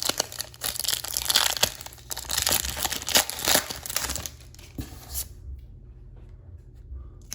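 A plastic trading card pack wrapper being torn open and crinkled in the hands, dense crackling that stops about five seconds in.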